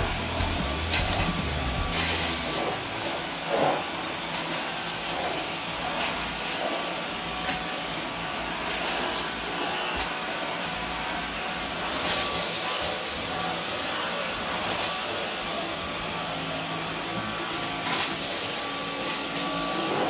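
Dyson V11 cordless stick vacuum running steadily with its motorised floor head driven across carpet, with a few brief knocks along the way.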